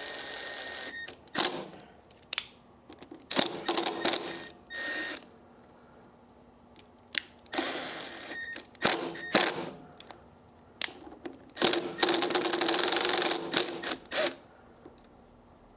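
Screws that hold the carbide inserts on a helical planer cutterhead being loosened and retightened. There are several short whirring bursts from the driver, each a second or two long, with sharp metallic clicks and taps between them.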